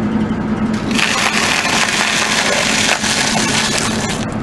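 A car tyre rolling over a stack of wafer ice cream cones, crushing them with a dense crackling crunch from about a second in until about three seconds in. A steady engine hum runs underneath.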